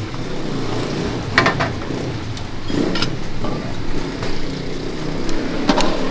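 Motor vehicle engines running steadily, with a few sharp clinks of porcelain bowls and utensils, about a second and a half in and again near the end.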